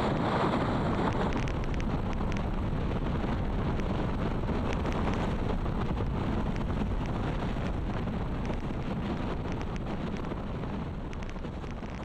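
Wind buffeting the microphone over the steady low rumble of a ferry under way at sea.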